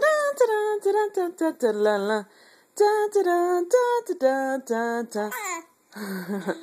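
A voice singing a quick tune of short, separate notes, with a short pause a little past two seconds in.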